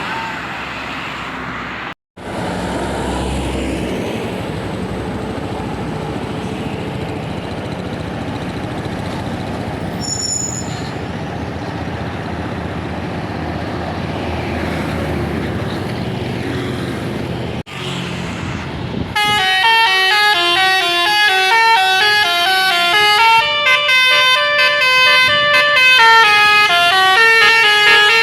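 Tour bus engine and road noise. About two-thirds of the way in, a multi-tone 'telolet basuri' bus horn starts playing a melody of quickly stepping notes, which runs on to the end.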